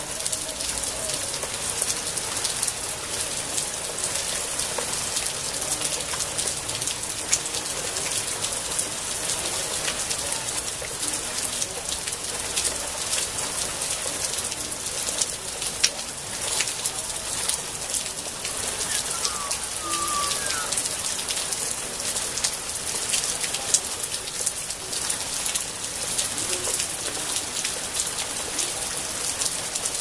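Steady rain falling on garden foliage and trees: an even, dense hiss with many separate drop ticks on the leaves.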